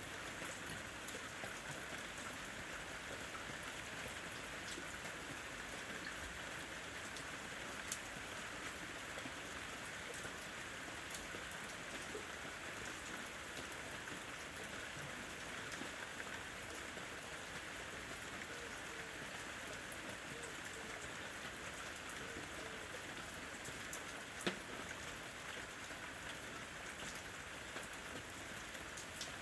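Steady rain falling and pattering on a surface, with two louder single drops ticking, about eight seconds in and again near the end.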